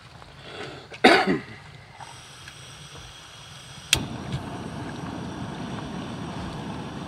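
A large pot of ground meat frying in bacon fat, sizzling steadily while it is stirred with a wooden spoon. There is a cough about a second in. A sharp clack comes near the middle, after which the sizzle is louder.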